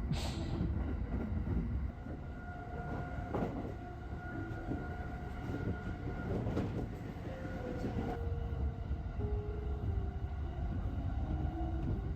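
Electric passenger train running along the line, a steady low rumble with faint whining tones; in the second half one whine shifts down and up in pitch in small steps.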